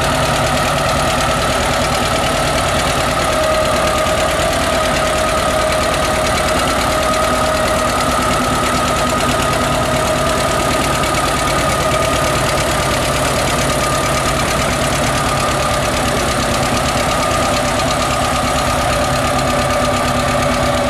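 John Deere 60 tractor's two-cylinder engine running steadily under load as it pulls a weight-transfer sled.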